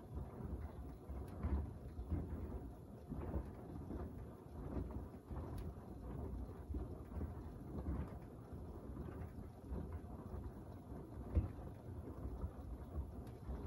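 Beko WDR7543121S washer-dryer drum tumbling a load of clothes in soapy wash water: low sloshing and rumbling that swells and falls irregularly, with one sharper thump late on.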